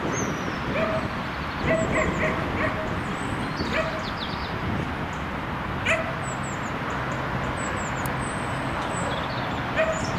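Dog barking in short, repeated barks, several in quick succession in the first four seconds, then only a couple more spread out.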